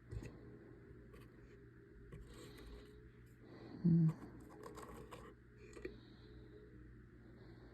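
Small scattered clicks and scratches of parts being handled, with a short hum of a man's voice about four seconds in.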